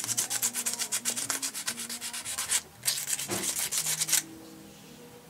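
Rapid back-and-forth scrubbing by hand on the selection track of a Rock-ola 443 jukebox, cleaning gunk from between its contacts. Quick scratchy strokes, several a second, pause briefly a little past two and a half seconds in and stop about four seconds in.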